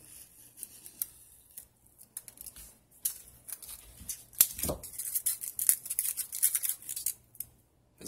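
Styrofoam (expanded polystyrene) being handled, giving a run of dry, irregular squeaks and crackles from about three seconds in. A single dull thump comes a little past the middle.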